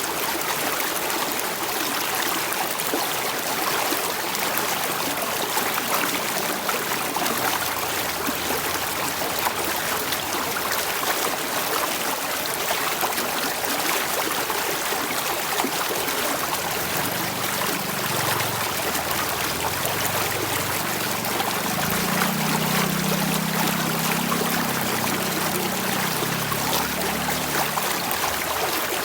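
Running water flowing steadily, a continuous even rush and trickle.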